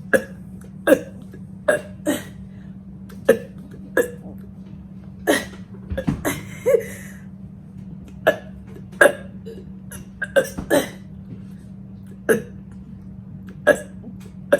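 A woman burping over and over, short forced burps coming about once a second, sometimes two or three in quick succession.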